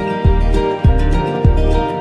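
Background music: held, sustained notes over a steady low beat, about three beats every two seconds.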